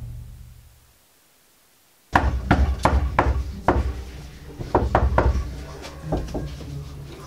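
Knocking on a wooden door: a run of sharp raps in uneven groups, starting about two seconds in after a moment of near silence.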